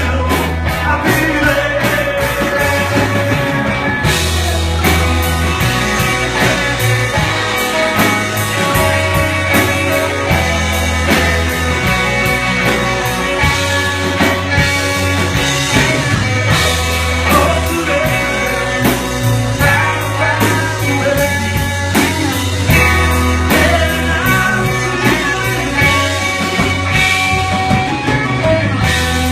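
Indie rock music: a band playing a song with bass and drums, at a loud, even level.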